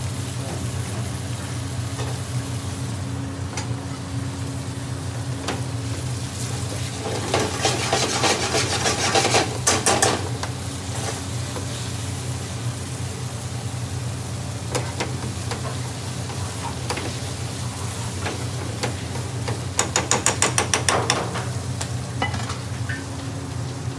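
A metal spoon stirring and scraping chicken pieces in a thick, sizzling curry sauce in a metal frying pan on a gas burner. There are two spells of fast, loud scraping, one about seven seconds in and one about twenty seconds in, over a steady low hum.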